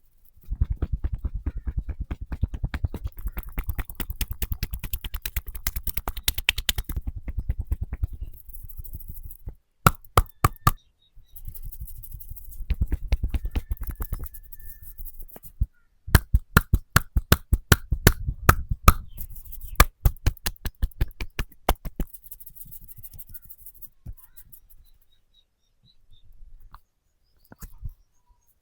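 Rapid, rhythmic hand tapping and slapping of a percussion massage, in runs of several seconds with short breaks between, quieter near the end.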